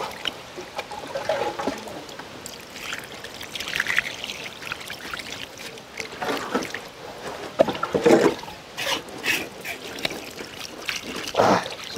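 Water poured from a plastic jug trickling and splashing over raw tuna pieces on a metal tray as they are rinsed by hand, in uneven spurts.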